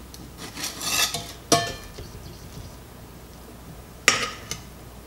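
Metal clinking and scraping as a steel trivet and a fork knock against a cast-iron skillet. There is a cluster of clinks in the first second or so, a sharp clink about a second and a half in, and another sharp clink about four seconds in.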